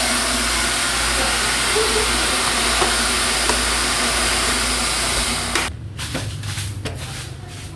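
Water running steadily with a loud, even hiss, stopping abruptly about five and a half seconds in. A quieter sound with a few light clicks is left after it.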